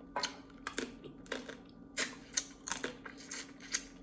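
A dozen or so irregular sharp cracks and clicks of crab shell being broken apart by hand while eating.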